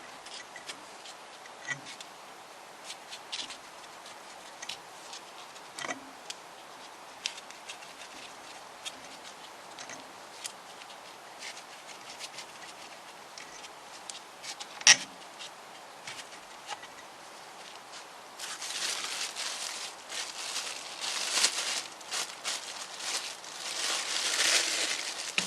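Small metal parts and tools being handled on a cylinder head: scattered light clicks and taps, one sharp knock about fifteen seconds in, then from about three-quarters of the way through a busier stretch of scraping and rustling.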